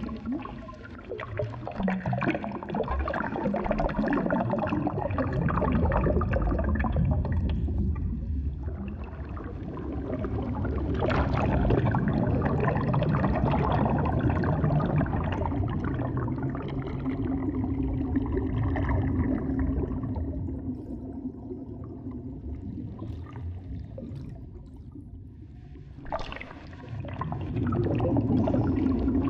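Water gurgling and swirling without a break, swelling and fading over several seconds, quietest a little before the end.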